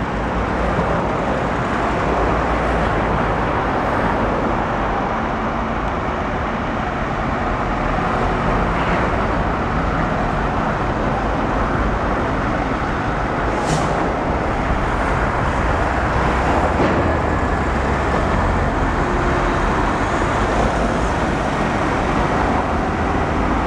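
Steady rumble of heavy vehicles and machinery working a container terminal, with a brief high hiss about fourteen seconds in.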